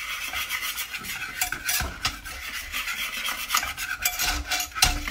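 Wire whisk beating a thick sauce in a glass bowl, scraping and clicking against the glass in quick, uneven strokes while more liquid is poured in and mixed a little at a time.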